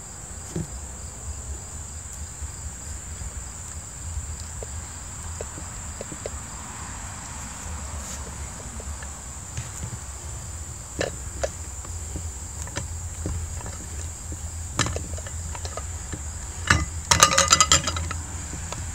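A steady, high-pitched insect drone, like crickets, with a low hum beneath. Scattered clicks turn into a loud burst of clicking and clatter near the end as the red plastic burger press and its lid are handled.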